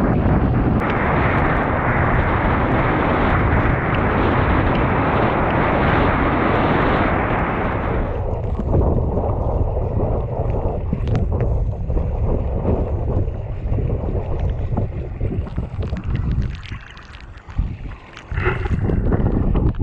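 Wind buffeting an action camera's microphone while a windfoil board rides at speed, with water rushing. About eight seconds in, the rush drops lower and turns into hissing water with short splashes and spray. Near the end it goes briefly quieter and muffled, then comes back.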